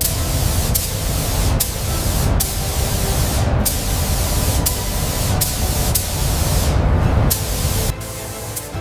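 Steady loud spraying hiss, like a spray gun or pressure washer at work, with a few short breaks. It cuts off about eight seconds in.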